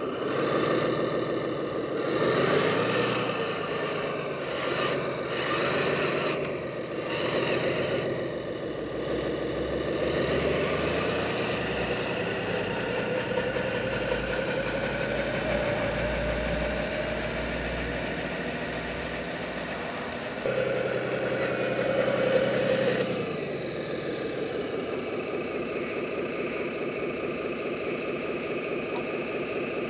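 Simulated diesel engine sound from an RC construction model's sound kit. It revs up and down several times, then climbs slowly in pitch for several seconds and jumps louder about twenty seconds in. It then drops back to a steady idle for the last several seconds.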